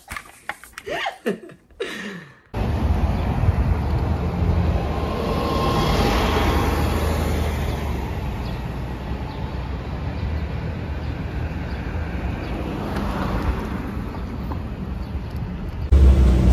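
City street traffic noise: a steady wash of passing vehicles with a low rumble, swelling about six seconds in as if a vehicle goes by. It begins suddenly a couple of seconds in, after a brief voice.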